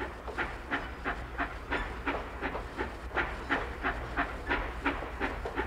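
Loaded rail trams rolling along narrow-gauge track: a steady clickety-clack about three times a second over a low rumble.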